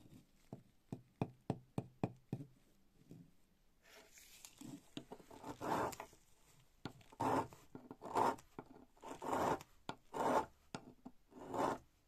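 A run of light sharp clicks, then a flat hand file rasping across the metal end of a rusty old pocket knife in slow strokes about a second apart.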